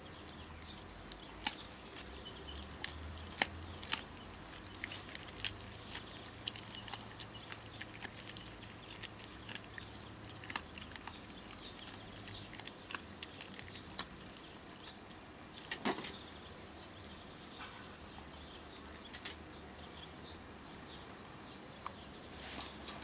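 Australian kelpie chewing and crunching a lamb sparerib bone: irregular sharp cracks and clicks, the loudest cluster about two-thirds through.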